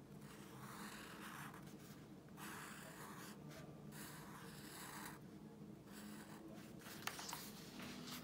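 Black Sharpie marker tip drawing across paper in a series of short strokes with brief pauses between them, as pencil lines are traced over; faint.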